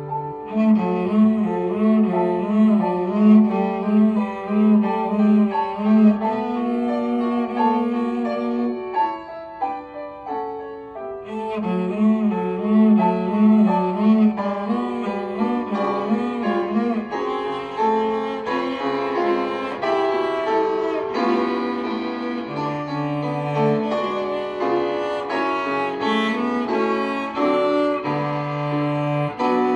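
A cello bowed in a flowing melodic line with vibrato on held notes, growing briefly softer and thinner about nine seconds in before resuming at full strength.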